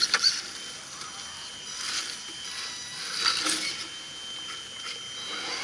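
Scale RC crawler truck's drivetrain whirring as its tyres scrabble and scrape over a dirt ledge, with sharp clicks and knocks. The clicks are loudest in a quick cluster just after the start, and the whirring swells twice.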